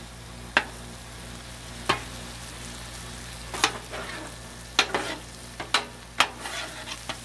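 Chili of ground meat, beans and vegetables sizzling on a Blackstone flat-top steel griddle while a metal spatula stirs it. The spatula clacks and scrapes against the griddle surface in about six sharp clicks over a steady sizzle.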